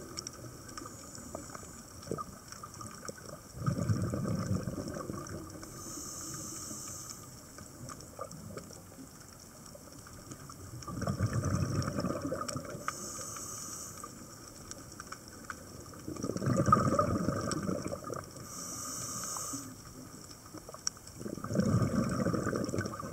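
A scuba diver breathing through a regulator underwater: a short high hiss on each inhalation, then a louder burst of bubbling exhaust on each exhalation, repeating about every six seconds, with four exhalations.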